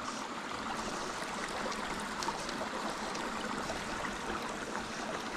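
Small mountain creek running shallow over rocks: a steady, even rush of flowing water.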